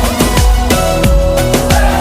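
Background music with a steady electronic drum beat and falling bass notes.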